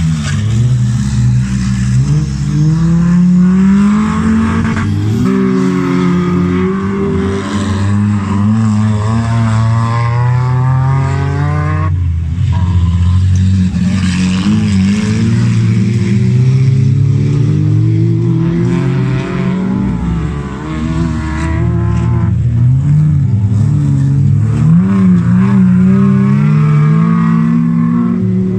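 Several autocross cars racing on a dirt track, their engines revving hard, with the pitch climbing and dropping again and again through gear changes as they slide around a bend. More than one engine is heard at once.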